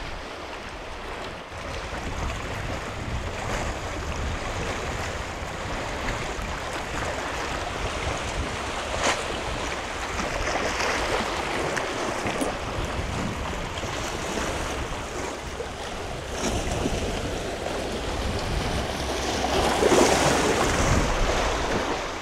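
Sea waves washing over a rocky boulder shore while strong wind buffets the microphone with a low rumble; the surf swells briefly about halfway through and comes in loudest near the end.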